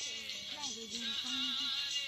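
Background music with a wavering melody line over a dense accompaniment.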